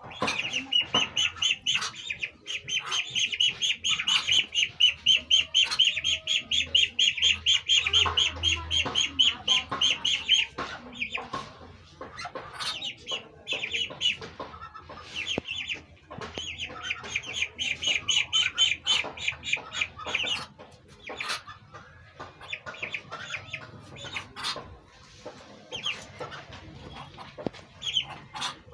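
Young ducks peeping: long runs of rapid, high-pitched peeps, several a second, broken by short pauses.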